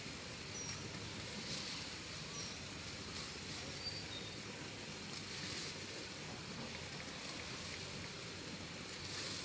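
Open-air rural field ambience with a steady faint hiss, a few brief high bird chirps in the first few seconds, and soft rustling of leafy plants as they are handled.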